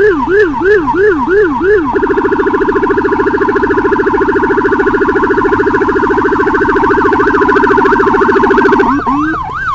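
Escort motorcycle's Whelen electronic siren sounding a yelp, about three and a half sweeps a second. About two seconds in it switches to a much faster warble, with a second siren's slower sweeps faintly under it, and near the end it goes back to the yelp.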